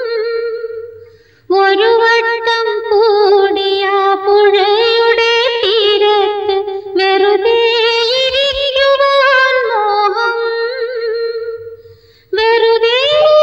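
A woman singing long, held, wavering notes with no clear words, dropping out briefly about a second in and again near the end.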